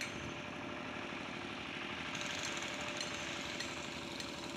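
An engine running steadily with a fast, even chug.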